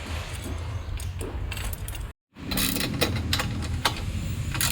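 Metal hardware clinking and clicking as awning brackets, sliding pieces and bolts are handled and fitted onto a roof rack, over a steady low hum. The sound cuts out for a moment about two seconds in.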